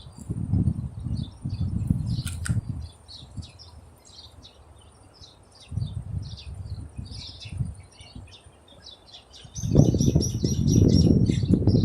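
Small birds chirping, with a quick run of repeated high notes near the end. Under them a low rumble comes and goes, growing loud about ten seconds in.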